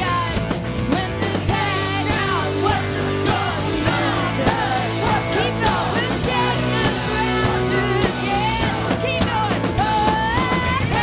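A rock band playing live: electric guitar, bass guitar and drum kit, with a woman singing lead.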